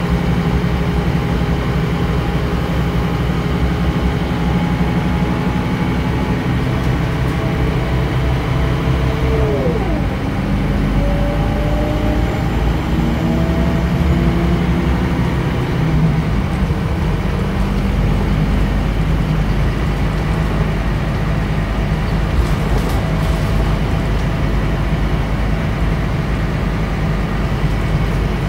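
Scania DC9 nine-litre diesel engine of a Scania K94UB bus, heard from inside the rear cabin while the bus drives, with steady engine and road noise. About ten seconds in, the engine note drops sharply at a shift of the ZF Ecomat automatic gearbox, then climbs again over several seconds.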